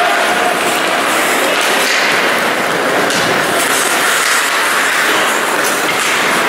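Steady rinkside noise of an ice hockey game in an echoing indoor arena: skates scraping the ice and sticks on the puck under a constant wash of crowd and bench noise.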